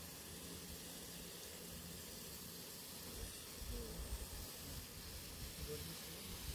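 Quiet outdoor ambience: a faint steady hiss, with low rumbles coming in from about halfway through.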